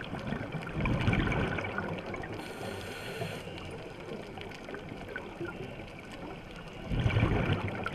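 Underwater scuba sound: two bursts of exhaled regulator bubbles, about a second in and near the end, over a steady underwater hiss with fine clicking.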